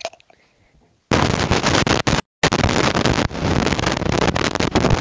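Loud crackling static from a faulty pair of cheap wired headphones. It starts about a second in and cuts out for a moment around two seconds in.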